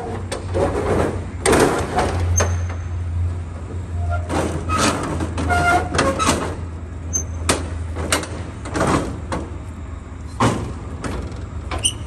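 A series of short clatters and knocks as hands work at a box truck trailer's rear doors, about eight in all, with a steady low engine hum running underneath.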